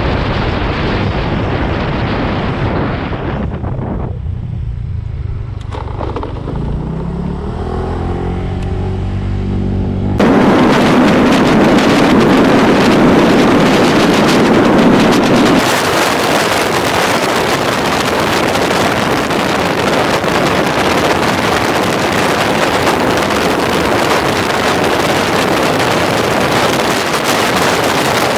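Honda Vario 125 scooter being ridden: its engine note rises as it picks up speed. About ten seconds in, the sound switches abruptly to a steady rush of wind on the microphone at riding speed, which stays the loudest sound.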